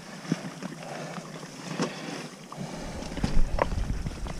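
Wind buffeting the microphone, turning into a heavy low rumble about halfway through, over a steady rush of water. A few sharp knocks come through, about three in all.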